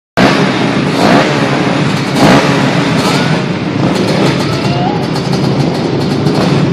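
Several racing quad (ATV) engines running together, with loud revs rising about one and two seconds in.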